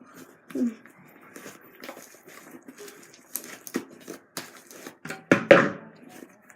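Fluffy slime made of glue, shaving cream and liquid starch being kneaded and stretched by hand, making scattered sticky clicks, crackles and squelches, with a louder burst about five and a half seconds in.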